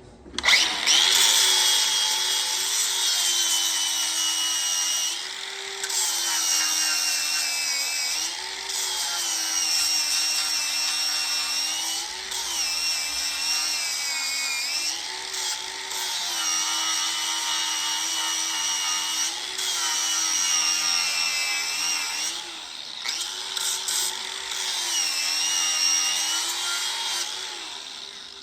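Handheld electric power tool, most likely an angle grinder, working steel. The motor runs continuously, its pitch dipping and recovering every few seconds as it is pressed into the work, with brief let-ups.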